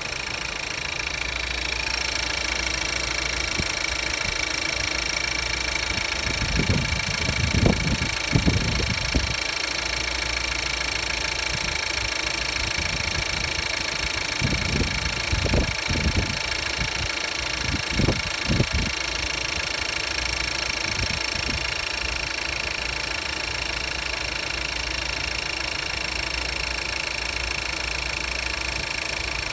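Audi A3's 1.4-litre (1395 cc) TFSI turbocharged petrol four-cylinder idling steadily, heard close up under the bonnet, with a steady high-pitched whine over the engine note.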